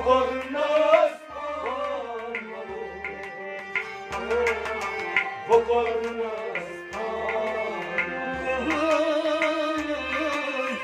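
Sufi song music: tabla playing a quick, steady pattern of sharp strokes and deep bass thuds under a sustained melody line whose pitch wavers.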